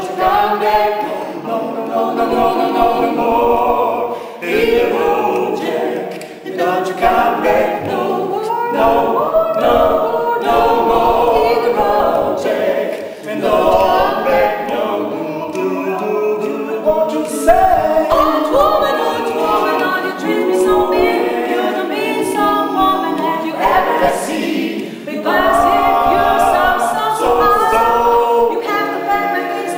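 Mixed vocal quintet of men and women singing a cappella in several-part harmony, in phrases with short breaks between them.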